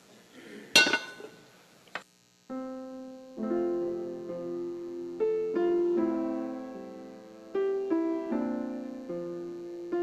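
A sharp metallic clink about a second in as the silver communion trays are handled. Then slow piano chords begin about two and a half seconds in and carry on as quiet background music.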